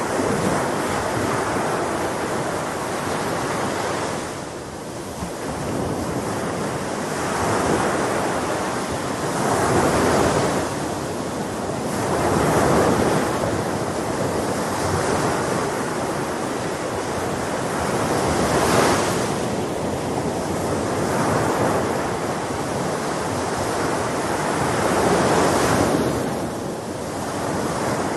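Sea waves breaking and washing on a shore, a continuous surf noise that swells every few seconds, with wind.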